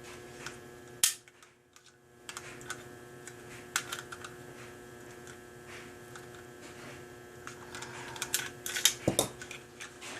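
Metal clicks and knocks from a Ruger Mark III pistol being taken apart by hand: a sharp click about a second in, scattered clicks after it, and a quick flurry near the end. A steady electrical hum runs underneath.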